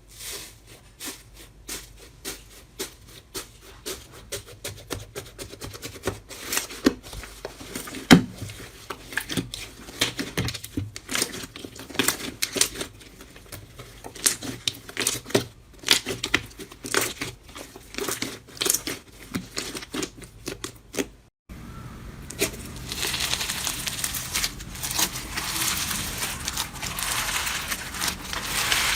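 Slime being squeezed and poked by hand, giving irregular crackles and pops. After a cut about three-quarters of the way through, it turns to denser, continuous crackling.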